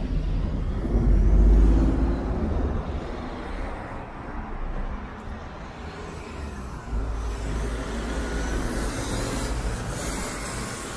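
Road traffic passing close by: a heavy vehicle's engine rumble, loudest about one to two seconds in, then another vehicle passing from about seven seconds.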